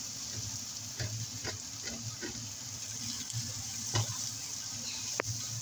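Shredded cabbage, carrots and green peppers with chicken being stirred and tossed in a wok with a plastic spatula: a light sizzle with several short strokes of the spatula against the pan, the loudest about four seconds in, over a steady low hum.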